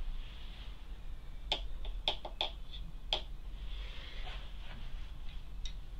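A handful of light, sharp clicks and taps, most of them bunched between about one and a half and three seconds in, with one more faint tick near the end, over a faint steady low hum.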